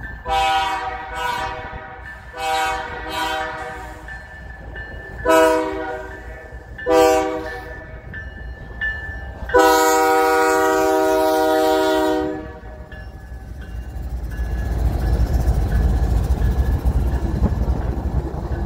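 Canadian Pacific GE ES44AC diesel locomotive sounding its multi-tone air horn for a grade crossing: five blasts, two long, two short, and a final long one, the last and loudest about ten seconds in. Then the heavy low rumble of the lead locomotives' engines and wheels passing close by.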